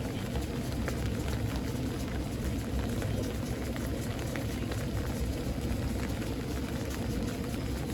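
Steady thunderstorm rain: an even hiss with scattered drop ticks over a constant low rumble.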